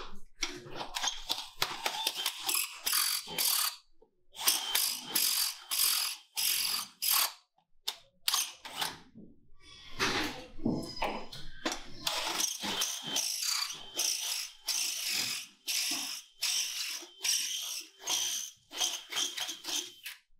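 Cordless drill boring into the steel of a TL-15 rated safe, run in short, uneven bursts of about two a second, with brief pauses about four and eight seconds in.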